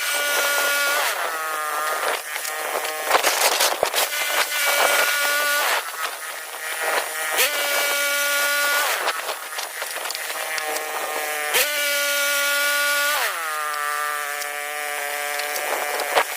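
Woodworking machine cutting wood: a motor whine that sags in pitch several times as the blade takes up load, alternating with rasping sawing noise.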